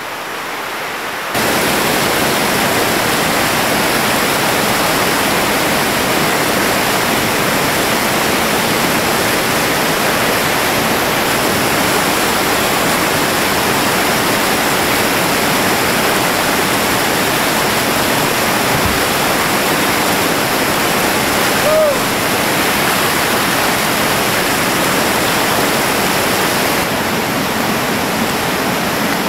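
Whitewater rapids and a ledge drop on a rain-swollen creek, rushing steadily and loudly; the rush jumps louder about a second and a half in.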